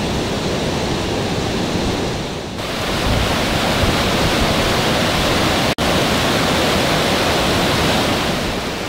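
Fast mountain river rushing over boulders in white-water rapids, a loud steady rush. It grows louder and brighter about two and a half seconds in and cuts out for an instant a little before six seconds.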